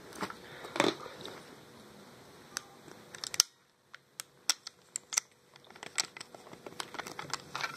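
Small sharp clicks and knocks of a paintball gun being handled and taken apart by hand, as its metal parts and pins are worked loose.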